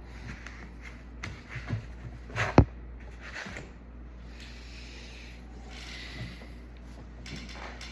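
Handling noises of laptop parts being picked up and moved: plastic rubbing and scraping, a few light knocks, and one sharp knock about two and a half seconds in.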